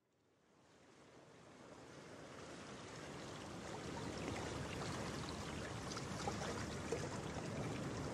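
Water heard through a camera held underwater: a muffled, rushing hiss with faint crackling, fading in over the first few seconds and then holding steady.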